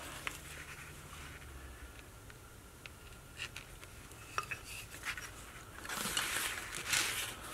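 Small carving gouge taking a light paring cut in basswood: a few faint ticks and clicks, then a soft scraping stretch near the end.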